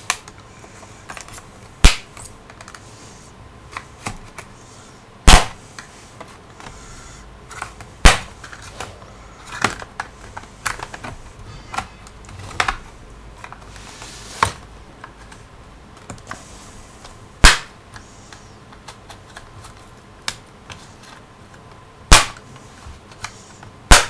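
Plastic retaining clips on a Dell Inspiron 11 3000 laptop's bottom cover snapping loose one by one as a pry tool works around the case edge. The sharp clicks come at irregular intervals, about six loud snaps among many smaller clicks.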